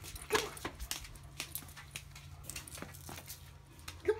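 A Doberman's paws in rubber-soled dog booties tapping and scuffing on concrete as he walks awkwardly, in irregular footfalls. A short voice sound comes about half a second in and again near the end.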